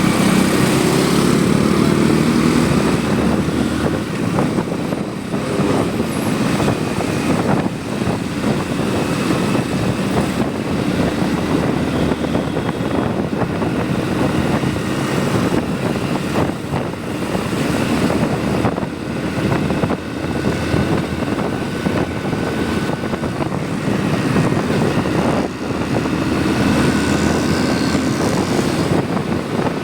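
Motorcycle on the move, its engine running steadily under a continuous rush of wind on the microphone.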